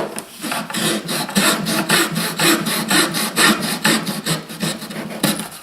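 Wood being abraded by hand in quick back-and-forth strokes, about five a second, taking the protruding end of a glued-in dowel down flush.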